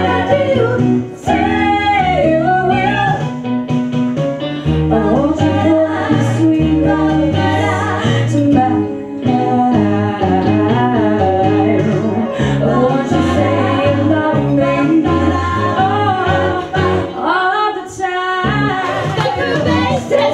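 Female vocal trio singing in close harmony in a 1960s doo-wop style, over instrumental backing with a stepping bass line.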